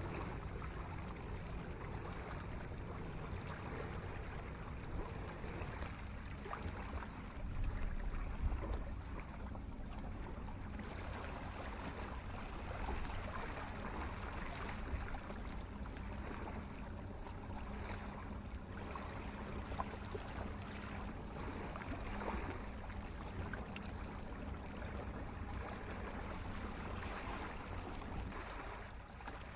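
Small waves washing steadily on the shore, with wind rumbling on the microphone; the rumble swells briefly about eight seconds in.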